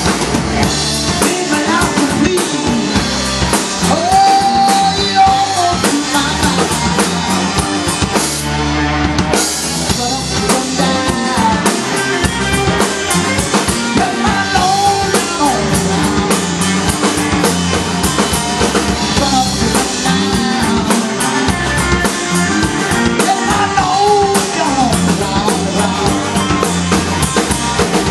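Live Chicago blues band playing a slow number: electric guitars over a drum kit with a steady beat, with long held notes that bend in pitch about every ten seconds.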